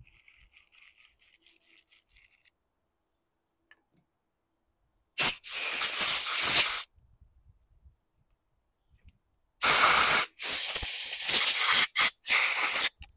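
Compressed air hissing from a blow-gun nozzle in two blasts, blowing debris out of a lawn mower engine: a short blast about five seconds in and a longer one, broken by brief pauses, near the end.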